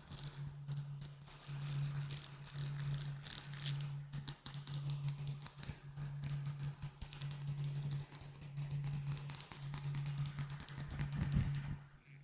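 Fast tapping on glass bottles: a dense, rapid stream of light, clicky taps.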